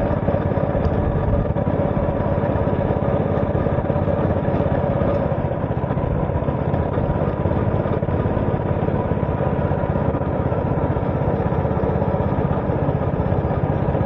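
A small engine running steadily.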